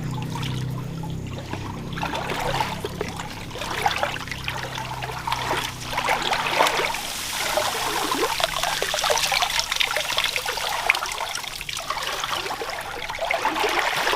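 Shallow water trickling and splashing in a tunnel stream, with uneven sloshes and splashes as it is stirred. A low hum fades out in the first few seconds.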